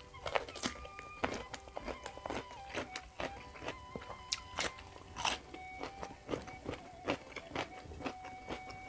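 Crunching bites and chewing of raw crisp vegetables (lalapan), many sharp crackly crunches a second, over quiet background music with held notes.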